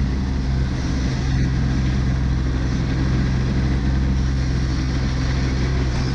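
Kubota B2601 compact tractor's three-cylinder diesel engine running steadily at a constant speed under work.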